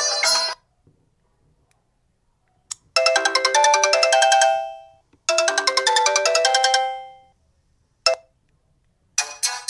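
Built-in ringtones of a Sony Ericsson Xperia X10 mini pro phone. One tone ends in the first half-second. After a pause, a short chiming melody of quick notes plays twice, its last notes ringing out each time, and another ringtone begins near the end.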